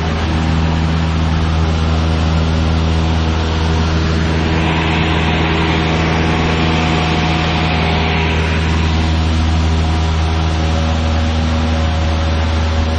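Cessna 152's four-cylinder Lycoming O-235 piston engine and propeller droning steadily in flight, heard as an even, unchanging hum. Partway through, a rush of hiss swells for a few seconds and fades again.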